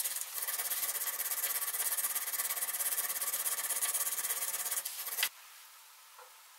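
A thin hand file rasping back and forth in a notch in a steel hex nut held in a vise, in quick, even strokes. It stops abruptly about five seconds in.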